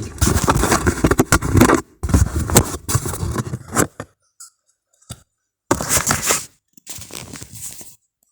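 Scraping and swishing inside a plastic washing machine drum, heard from within the drum, coming in rough bursts of one to two seconds with short silent pauses between them.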